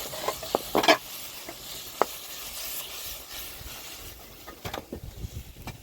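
Food sizzling in a hot pan, a steady high hiss with a few sharp clicks and knocks of a utensil on the pan.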